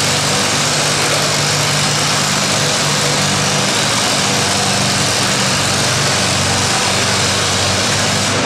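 Antique Allis-Chalmers tractor engine idling steadily.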